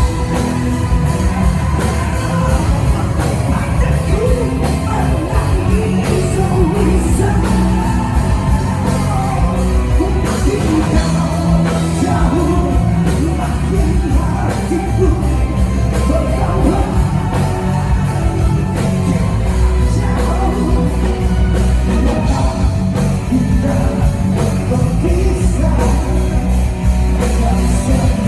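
Live rock band playing loudly, with a singing voice over the band.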